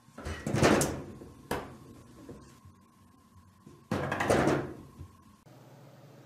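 A cat paws at a frosted-glass sliding door, which rattles loudly twice, about a second each time, with a sharp knock in between.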